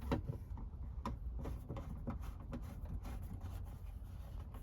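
Faint, scattered clicks and taps from plastic plumbing parts being handled and fitted together, over a low steady rumble.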